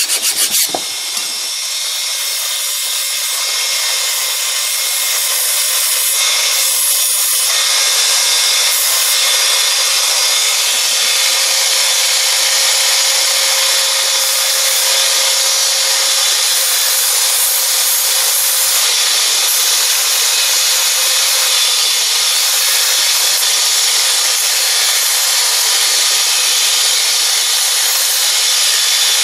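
Steady, unbroken rasping noise of a power tool working metal. It starts about a second in and runs on without a pause.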